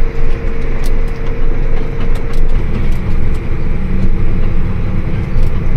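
Motor vehicle engine running steadily while driving, with a constant low rumble and a steady hum. It starts abruptly.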